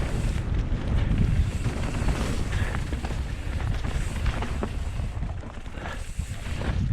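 Wind buffeting the microphone while a mountain bike rides down a trail, a steady low rumble with scattered clicks and rattles from the bike over the ground.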